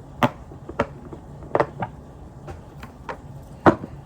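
Silicone pop-it fidget toy having its bubbles pressed one at a time: about six sharp pops at irregular intervals, the loudest near the end.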